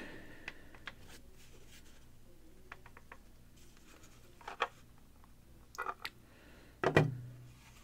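Scattered light clicks and a few short knocks of a 3D-printed plastic injection mold being handled and its halves pried apart by hand, the loudest knock about seven seconds in.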